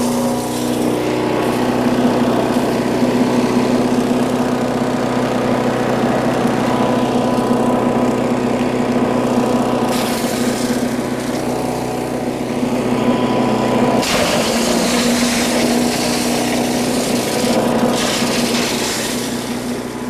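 Gas-engine chipper shredder running steadily, with stretches of harsher grinding as lumber scraps are fed in and chewed up, around ten seconds in and again from about fourteen seconds in.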